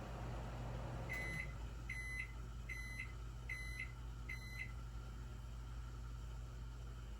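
Five short high-pitched electronic beeps, evenly spaced a little under a second apart, over a steady low hum.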